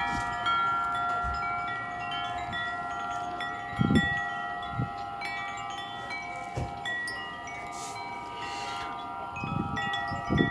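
Wind chimes ringing in the wind: several overlapping notes, each ringing on, with fresh strikes every so often. A few short low thumps come through in the middle and near the end.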